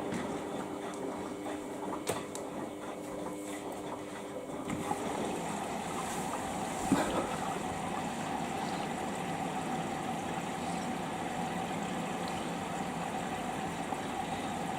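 Samsung EcoBubble washing machine filling with water: a steady rush of water into the machine with a low machine hum that shifts to a higher pitch about five seconds in, and a single brief knock a couple of seconds later.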